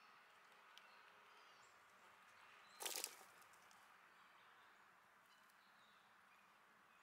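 Faint outdoor ambience with faint bird chirps. About three seconds in, a short, loud, scratchy rustle lasting under half a second: a fox squirrel scrambling on the corn-strewn stump up to the corn cob.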